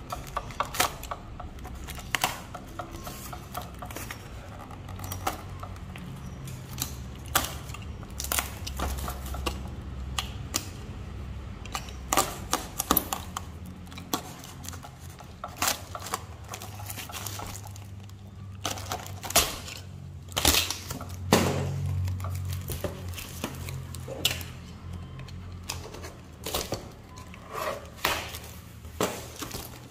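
Utility knife slicing through packing tape and the cardboard packaging of a pegboard, with scattered sharp clicks, scrapes and cardboard handling noises at an irregular pace over a low steady hum.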